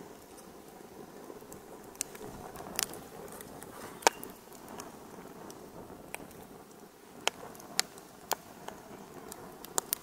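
Fire crackling: irregular sharp pops and snaps over a soft hiss, the loudest pop about four seconds in.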